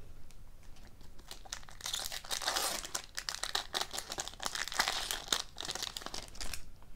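Foil trading-card pack wrapper being torn open and crinkled in the hands. It crackles in irregular bursts from about a second and a half in.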